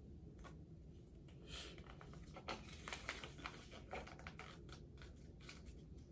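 Faint rustling and crinkling of a folded paper instruction leaflet being unfolded and handled, a scatter of soft short rustles.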